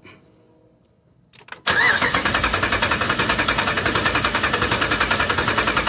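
Dodge Ram 5.7 Hemi V8 being turned over on the starter with the valve cover off, starting suddenly about a second and a half in and going on as an even, rapidly pulsing cranking. It is turned over so the rocker arms can be watched: the mechanic takes the one that barely moves for a failed lifter that has damaged the camshaft, the cause of the misfire.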